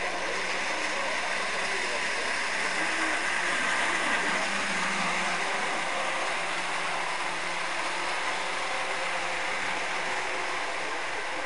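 Model train running along layout track: a steady whirring rumble of the locomotive's motor and wheels on the rails, swelling slightly about four seconds in as it passes close by.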